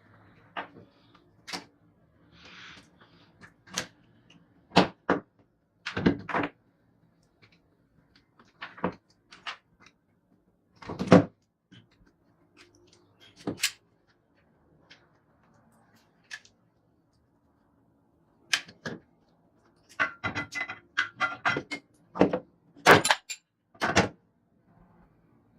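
Irregular sharp knocks and clicks of hand tools and metal parts being worked on a rusty children's scooter, some clustered in quick rattling runs.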